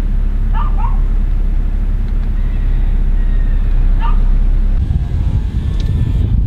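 A dog barks a few times, twice close together about half a second in and once more about four seconds in, over a steady low rumble.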